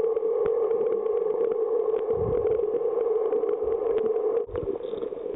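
Underwater sound picked up by a compact waterproof camera: a steady hum with many scattered faint clicks, the hum breaking and changing near the end.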